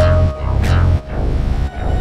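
Electronic music built from Launchpad app loops: a pulsing deep bass line under quick falling sweep effects and a held synth tone.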